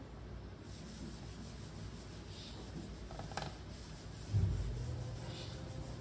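Quiet rubbing and scraping on wood during hand joinery work, with a sharp click about three and a half seconds in and a dull knock about a second later.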